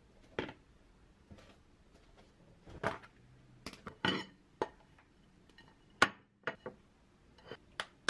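Dishes being handled and set down on a kitchen counter: plastic containers and a ceramic plate knocking and clattering in about a dozen separate short knocks, the sharpest about six seconds in.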